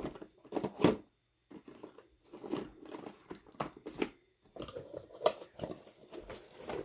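Packaging and small cosmetic items being handled: irregular rustling and crinkling with light clicks and knocks, pausing briefly twice.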